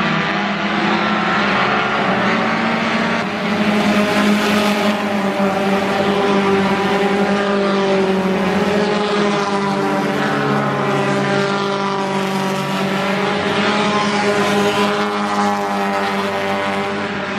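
Engines of a field of four-cylinder stock cars running together on the oval, several engine tones overlapping, their pitches rising and falling as the cars pass.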